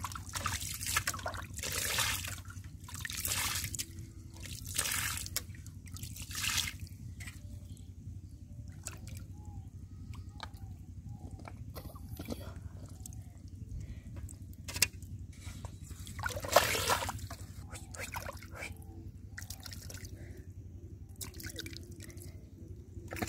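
Muddy puddle water being scooped out and tipped away with a plastic plate, splashing about once a second through the first several seconds, then one louder splash later on.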